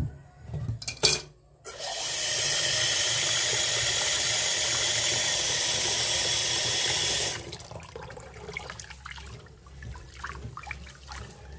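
Water running from a tap into a cooking pot for about five seconds to wash rice before cooking it, stopping abruptly. A couple of knocks come before it, and light clattering follows.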